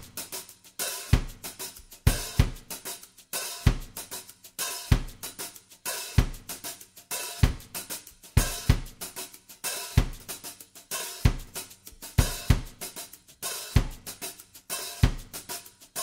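Background music: a steady drum-kit beat, with a deep drum hit about every second or so and cymbals and hi-hat keeping time between.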